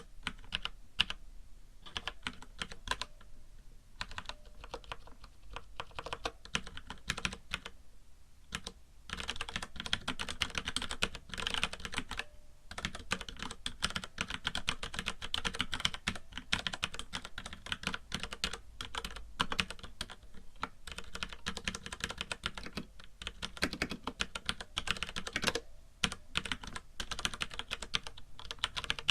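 Typing on a FILCO Majestouch mechanical keyboard with Cherry MX Brown tactile switches, a fast, irregular clatter of key clicks with a few short pauses. A light hiss of white noise lies under it.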